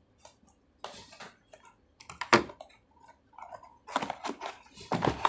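Cardboard packaging of a solar floodlight handled on a wooden table: scattered rustles, taps and knocks, with one sharp knock about two seconds in and a run of knocks near the end.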